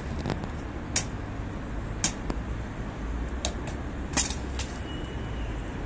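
A series of sharp clicks, the loudest four coming about a second apart, from the honour guard's ceremonial drill, over a steady rumble of city traffic.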